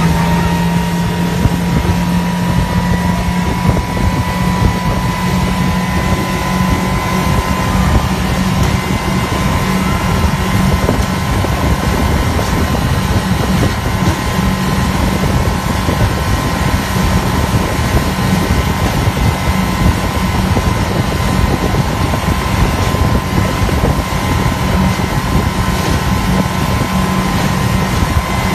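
Outboard motor running steadily at speed, a constant engine hum with a higher whine, over the rush of the boat's churning wake and wind on the microphone.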